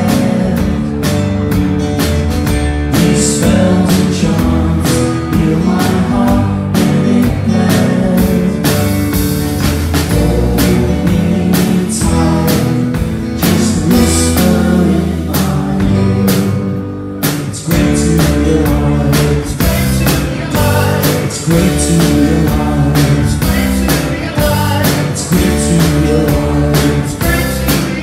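Live band playing a song on acoustic guitar, electric guitar, bass guitar and drums, with a steady drum beat; the music drops back briefly just after the middle.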